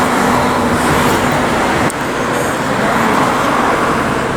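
City street traffic noise: a steady, loud wash of passing road vehicles, with a brief dip about two seconds in.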